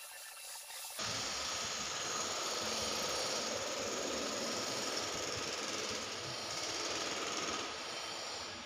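A power tool running steadily. It starts abruptly about a second in and gives a dense, even noise.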